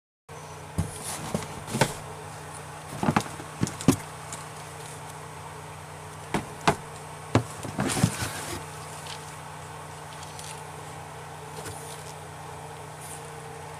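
Cardboard product boxes being handled on a table: irregular sharp knocks and taps through the first eight or nine seconds, over a steady low hum.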